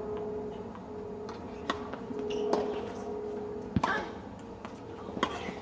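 Tennis ball being struck by rackets and bouncing on a hard court during a rally: several sharp knocks spread over a few seconds, the loudest a little past the middle, over a steady hum.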